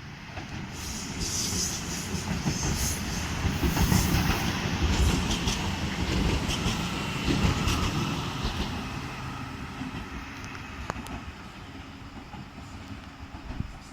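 Train passing through a railway station: its rumble and wheel clatter swell over the first few seconds, peak about four to five seconds in, then fade away.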